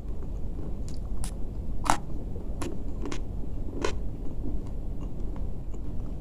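A person chewing crispy fried food, with about six sharp crunches over the first four seconds, over a steady low background rumble.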